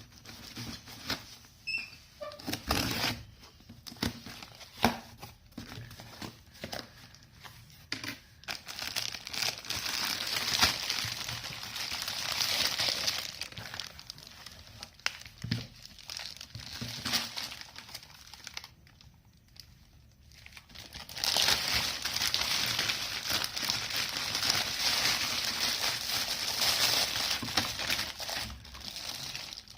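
Plastic packaging crinkling as it is handled and opened, in two long spells with a short pause between, after a few seconds of scattered clicks and taps.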